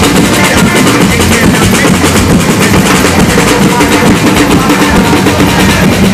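Batucada percussion ensemble playing a steady, loud samba rhythm, with deep bass drum beats under busy snare-like strokes.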